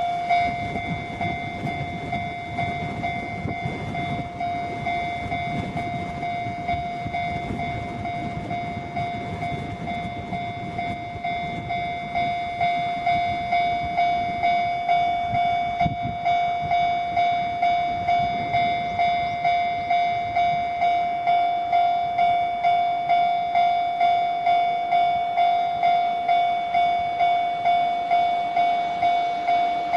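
Japanese level-crossing warning bell ringing, a steady high electronic tone, over the low rumble of a freight train. The train is hauled by an EF66 electric locomotive with long-rail wagons. From about halfway a regular beat of about two a second comes through.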